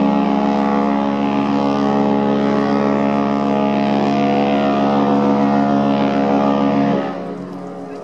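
The cruise ship Queen Elizabeth's horn sounding one long, steady blast that cuts off about seven seconds in.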